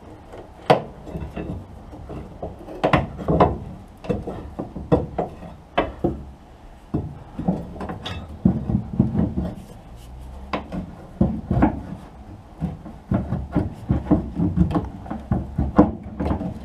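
Hand tools and loose metal parts clinking, knocking and scraping at irregular intervals during work on a car's rear axle.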